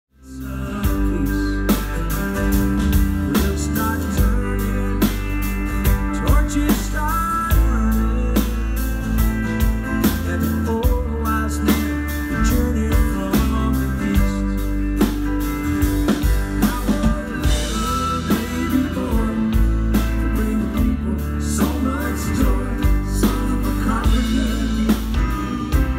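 Live pop-rock band playing a song on drum kit, bass and guitars, with a woman singing lead. The music cuts in at full level right at the start, with a steady drum beat throughout.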